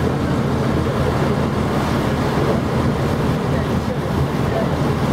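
Vaporetto water-bus engine running steadily, with the wash of water and wind buffeting the microphone.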